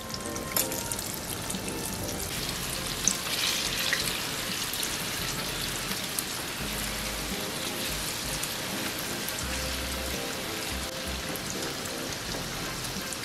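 Battered chicken skins deep-frying in hot oil in a frying pan: a steady sizzle and crackle of bubbling oil. A few sharp clicks come in the first four seconds, with faint music underneath.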